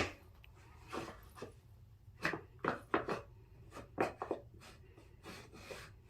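Extra-thick wooden puzzle piece knocking against a wooden puzzle board in a string of irregular taps and clacks as it is fitted into its slot.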